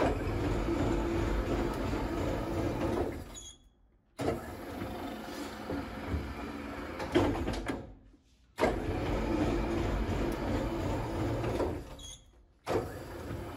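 Motorised flatbed offset lithography proof press running, its blanket cylinder carriage travelling along the toothed racks over plate and paper: a steady mechanical whir and rumble. It is broken by short silences about every four seconds and is quieter after the last one.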